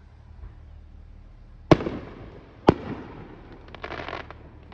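Aerial firework shells bursting: two loud booms about a second apart, each trailing off in an echo, then a spell of rapid crackling near the end.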